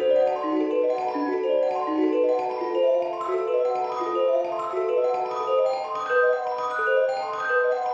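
Instrumental Christmas background music: a quick melody of short, bell-like notes on mallet percussion, starting just as an earlier piece with a heavy bass ends.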